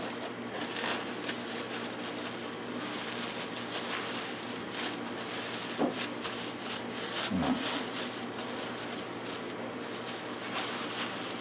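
Plastic wrap crinkling and rustling in soft, irregular crackles as hands press pastry dough together inside it.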